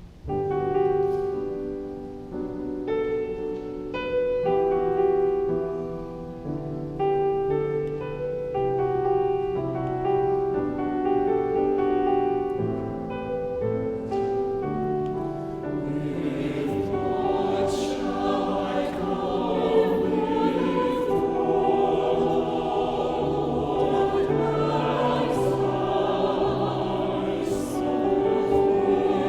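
Church choir singing with organ accompaniment: sustained organ chords play alone at first, and the choir comes in about fifteen seconds in.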